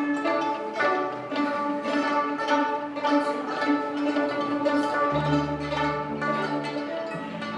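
Instrumental music of quickly plucked string notes, with a low sustained bass line coming in about five seconds in.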